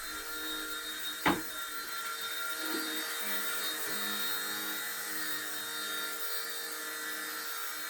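Firefox C129 micro RC helicopter's small electric motor and rotor whirring steadily in hover, with one sharp click about a second in.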